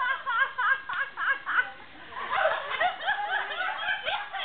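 A group of people laughing: a quick run of short laughs in the first second and a half, then several voices laughing over one another.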